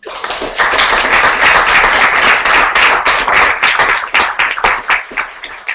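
Audience applauding, starting all at once and thinning to a few separate claps near the end.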